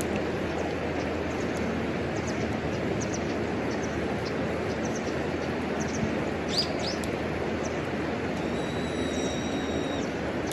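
Wood fire burning steadily in a homemade wood stove, a continuous rushing sound with a few faint crackles. Birds chirp briefly about two thirds of the way through, and a thin held whistling note sounds near the end.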